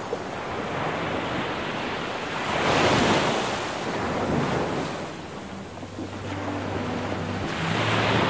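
Ocean surf breaking and washing up a sandy beach, swelling loudest about three seconds in and again near the end.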